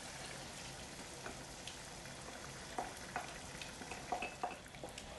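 Chicken and tomato frying faintly in a pan as a yogurt sauce is poured in, with a spatula scraping the glass bowl and tapping the pan in light, scattered ticks during the second half.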